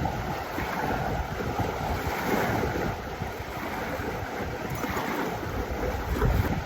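Wind buffeting the microphone in uneven gusts, over the wash of lake water.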